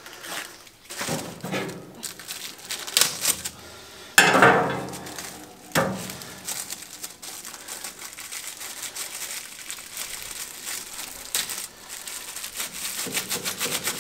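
Plastic wrapping on a pack of fire lighters crinkling and tearing as it is worked open by hand, with sharper, louder moments about four and six seconds in. The pack is tightly wrapped and hard to open.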